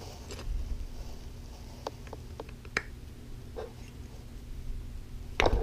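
Handling noise of a metal plate being worked onto a wooden block: scattered small clicks and scrapes as its pins are pushed at the drilled holes, with a couple of sharper knocks near the end.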